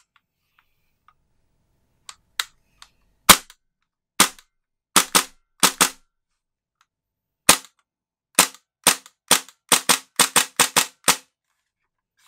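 Tokyo Marui USP9 gas blowback airsoft pistol firing off its remaining gas: about twenty sharp cracks, scattered at first and some in quick pairs, then a fast string of about eight near the end.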